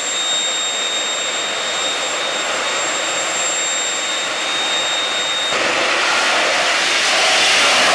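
Jet dragster's turbojet engine running at the start line with a steady high whine; about five and a half seconds in the whine drops out and a louder rush of jet noise takes over, building as the afterburner lights and the car launches.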